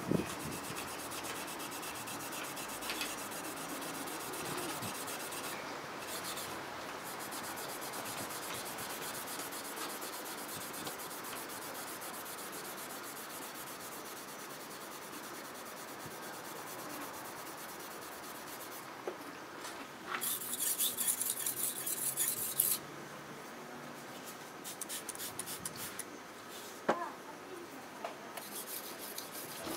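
Rapid scrubbing strokes of a small hand-held whetstone piece rubbed back and forth over the flat of a Tosa-style kitchen knife's blade, polishing away the sharpening scratches. About two-thirds through comes a louder hissing stretch of two or three seconds, and a couple of sharp clicks follow near the end.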